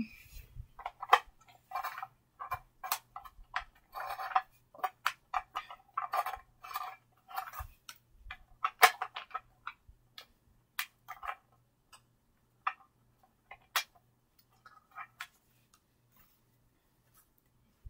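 Irregular short clicks and rustles of hands handling paper cards and stuffed toys, coming thickly at first and thinning out in the second half.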